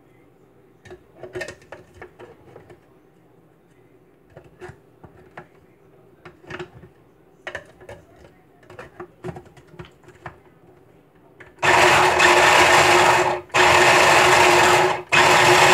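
Small countertop food processor grinding soaked chickpeas with herbs and garlic. Its motor runs loud and steady in three pulses with two brief breaks, in the last four seconds. Before that come light clicks and knocks as the plastic bowl is loaded and the lid is fitted.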